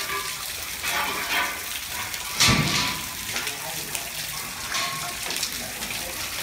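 Rain pattering and splashing steadily on a flooded concrete floor, with a louder burst about two and a half seconds in.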